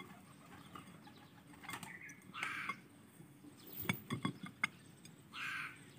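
A bird calling twice, short calls about three seconds apart, with a few sharp knocks between them, about two-thirds of the way in.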